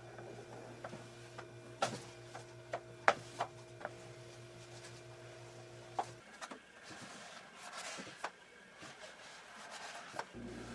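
Light, irregular taps and clicks of hand work on a wooden cabinet over a steady electrical hum. The hum cuts off about six seconds in, leaving faint rubbing and a few more taps.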